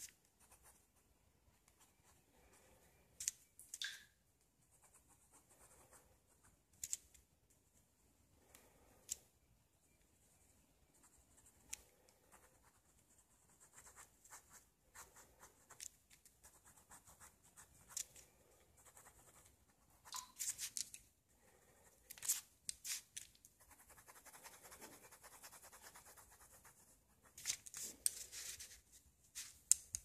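Ballpoint pen scratching on lined paper in short sketching strokes, coming in scattered bursts with a few sharp clicks and a longer run of scratching near the end. Underneath, a leaky faucet drips faintly about every second and a half.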